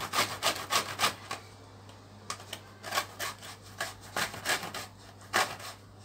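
Orange peel rubbed back and forth over a flat metal hand grater to take off the zest: quick rasping strokes, about four a second, with a short pause a little after a second in.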